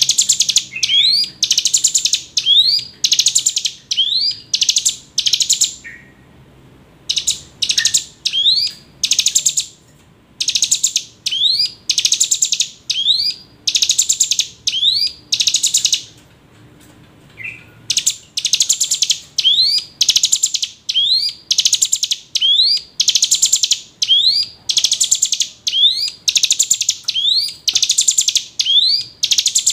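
Ciblek gunung (hill prinia) calling loudly: a long run of sharp, buzzy notes, each with a quick rising sweep, about two a second, broken by a few short pauses.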